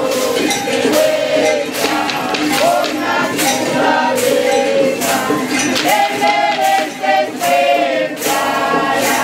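Music: a group of voices singing together over a steady percussion beat.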